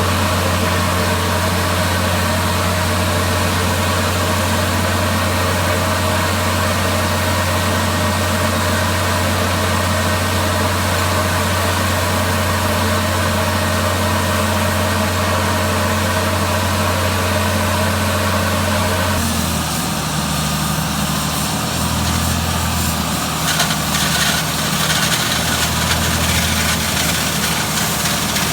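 IVAC PV500 industrial vacuum unit running, a loud steady machine hum. About two-thirds of the way through, the sound changes: the low hum turns uneven and pulsing, and a few seconds later rougher, scratchy noise joins it.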